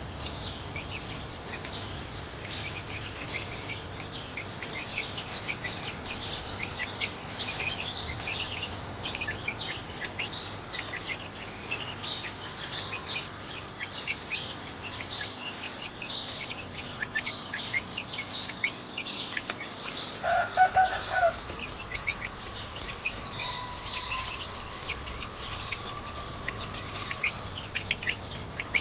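A group of newly hatched chicks peeping continuously in many short, high chirps. About two-thirds of the way in there is one louder, lower call, lasting under a second.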